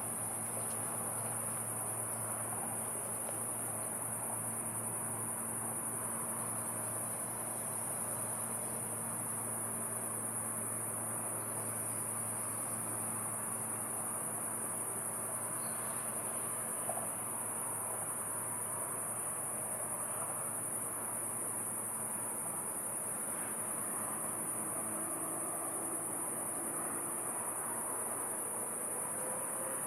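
Steady, high-pitched chorus of crickets trilling without a break, over a soft even wash of river water.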